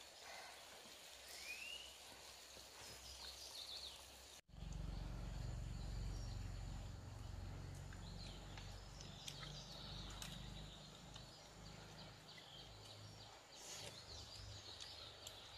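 Quiet forest ambience: scattered bird chirps and a thin, steady, high insect tone, with a low steady noise coming in suddenly about four seconds in.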